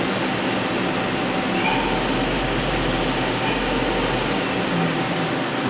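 Hurco TM8i CNC lathe running a cleanup pass of its thread-repair cycle: a steady machine noise, with a low hum added for a couple of seconds in the middle.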